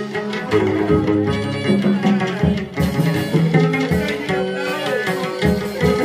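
Hát văn (chầu văn) ritual music: a plucked-string melody over a steady beat of drum and wooden clapper strokes, accompanying a spirit medium's dance.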